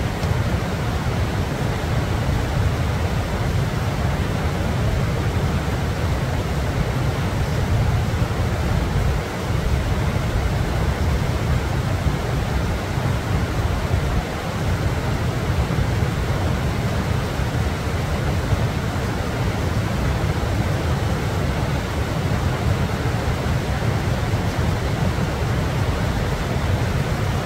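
Steady rushing noise with a heavy, fluttering low rumble: wind blowing across the microphone.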